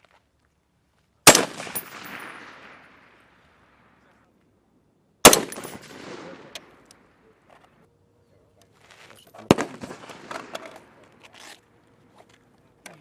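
Three single rifle shots, about four seconds apart, each followed by a rolling echo that fades over a second or two.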